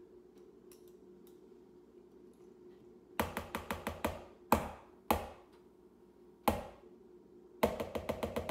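Mixing utensil knocking against a mixing bowl as cookie dough is stirred: a quick run of clicks a little after three seconds in, three single knocks, then another quick run near the end.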